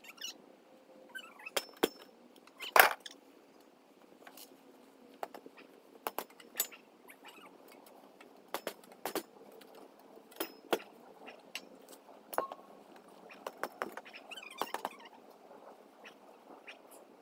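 Irregular clinks and knocks of metal trampoline frame tubes and springs being handled, with one louder knock about three seconds in.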